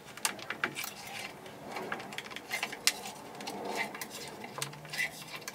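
A thin metal blade scraping and tapping along a freshly glued lattice of wooden strips, metal on wood, in a run of irregular light clicks and scrapes.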